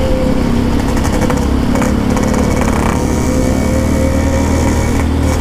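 Yamaha RX-King's single-cylinder two-stroke engine with an aftermarket PK 2 exhaust, running at a steady, moderate throttle while cruising, the pitch holding almost level.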